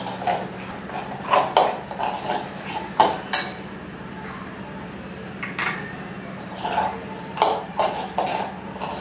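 A spoon clinking and scraping against a bowl in short, irregular strokes as a mixture is stirred.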